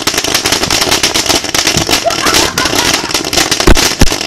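Consumer fireworks going off: dense, rapid crackling with several louder bangs near the end.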